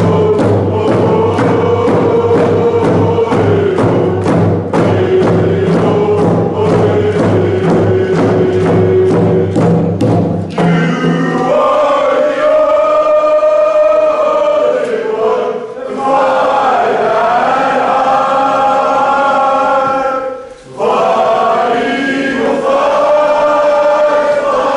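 A group of male voices singing a chant to an even beat on hand-held hide frame drums. About ten seconds in, the drumming stops and the voices carry on unaccompanied, with a short break in the singing near the end.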